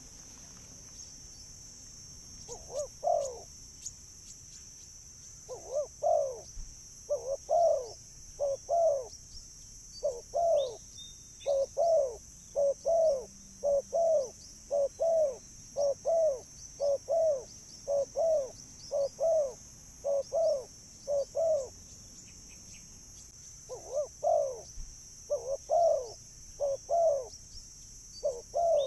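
Spotted dove cooing: a long series of short, low coo notes repeated at an even pace, mostly in close pairs, starting a few seconds in and breaking off briefly near the end before resuming. A steady high-pitched hiss runs underneath.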